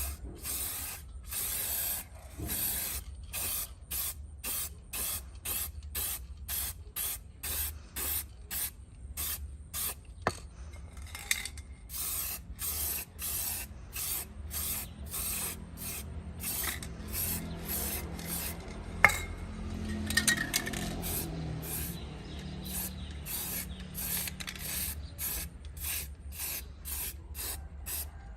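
Rhythmic abrasive rubbing strokes, about two a second, typical of hand sanding or scrubbing rust off bike parts. A few sharp clicks come through, the loudest about two-thirds of the way in.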